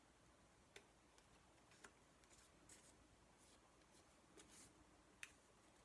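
Faint, scattered snips of scissors trimming paper, a few sharp clicks among brief papery rustles.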